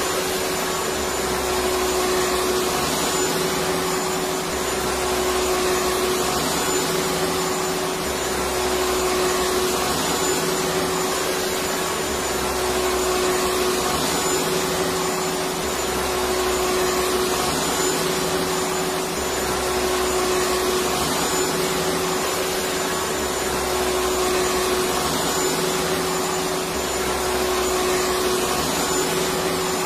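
Electric vacuum cleaner running continuously: a steady motor hum under a rushing airflow hiss, with a low rumble that swells and fades about every two seconds.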